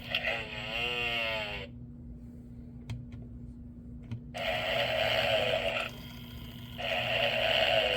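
Gemmy animated Snoring Santa toy snoring: a drawn-out wavering snore, a short pause with a couple of faint clicks, then two long snoring breaths, over a steady low hum.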